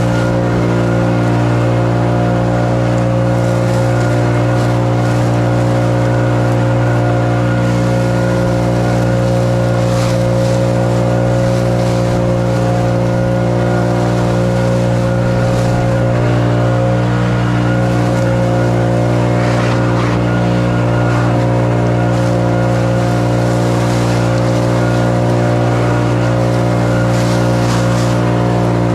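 Gasoline engine of lawn equipment running steadily at full throttle, with an even, unchanging note throughout.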